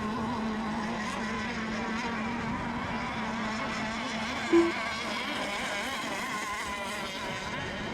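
Several radio-controlled racing boats running on the course together, their engines whining in a steady mix of wavering pitches. A brief beep sounds about four and a half seconds in.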